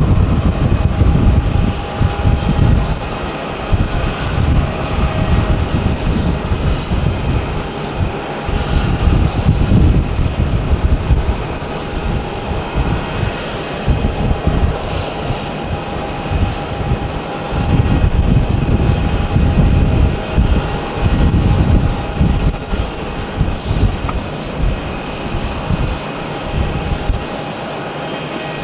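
Airbus A350-900's Rolls-Royce Trent XWB jet engines running at taxi power, a steady distant whine and hum as the airliner taxis. Wind on the microphone adds a gusty low rumble that rises and falls.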